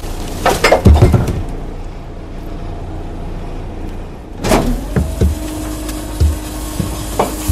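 Garbage truck sound effects: the engine runs steadily under two bursts of clattering and thuds as wheelie bins are tipped into the back. A steady mechanical whine sounds in the last couple of seconds.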